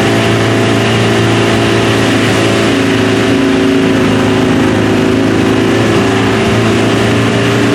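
Tour van's engine running steadily, heard from inside the cabin, with a constant low hum over road noise.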